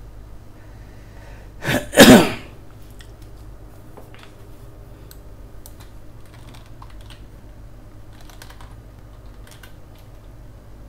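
One loud cough-like burst from a person about two seconds in: a short catch, then a longer blast. Faint, scattered computer mouse and keyboard clicks run through the rest.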